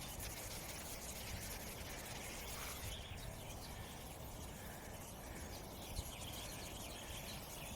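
Faint, steady outdoor ambience on an open mountainside: an even hiss with no distinct event apart from a single small tick about six seconds in.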